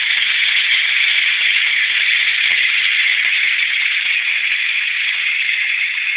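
Water from a garden hose pouring steadily into a bucket already full of water: a constant splashing rush that does not change.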